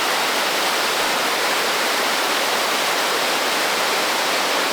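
Water roaring and rushing over a spillway, a loud steady rush with no change.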